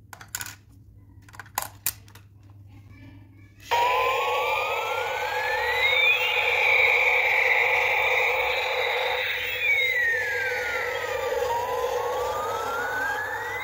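A few sharp clicks as AA batteries are fitted into a battery-operated toy helicopter. About four seconds in the toy switches on, and its electronic siren sound plays through its small speaker: a slow wail that rises, holds, falls, then rises again.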